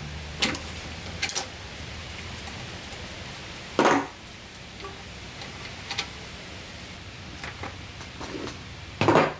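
Metal tool handling as a ratchet wrench loosens and removes the spark plug of an old Tecumseh snowblower engine. Scattered light clicks and clinks, with a louder clink about four seconds in and another near the end.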